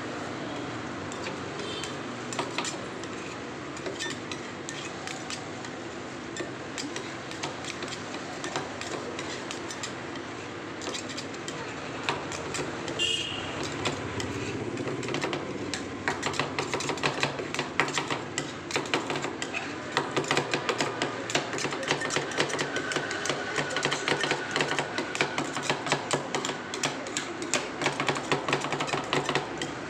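Steel spatulas chopping and scraping rolled-ice-cream mix on a cart's frozen steel plate. From about halfway through they give a fast, uneven run of metal clicks and taps over a steady background hum.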